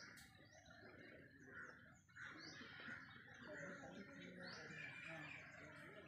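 Faint chorus of many birds, with short high chirps and calls overlapping one another.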